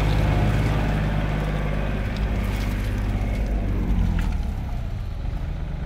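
Daihatsu Gran Max pickup's engine running steadily as a low hum, easing off somewhat after about four seconds.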